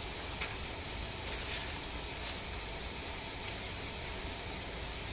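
Steady background hiss with no speech, with a couple of faint short ticks about half a second and a second and a half in.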